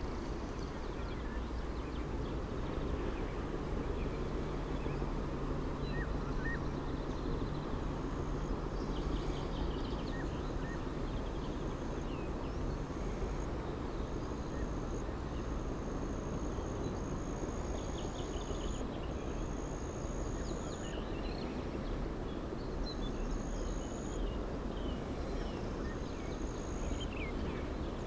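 Outdoor riverside ambience: a steady low rushing noise, with faint scattered bird chirps and a thin high-pitched trill that comes and goes in stretches of a second or two.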